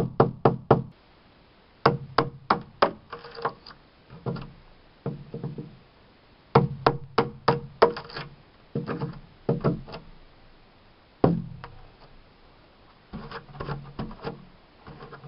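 Rubber mallet striking a chisel, in quick runs of sharp knocks about five a second with short pauses between, as a hinge recess is cut into weathered, hardened wood.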